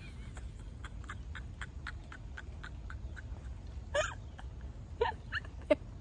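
A woman's stifled laughter: mostly held-in, with short gasping laugh bursts about four seconds in and three more near the end. Faint ticks, about three a second, sound through the first half.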